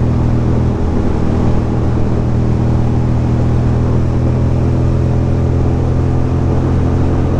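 2006 Ducati Monster 620's air-cooled L-twin engine running at a steady pitch while the bike cruises at constant speed.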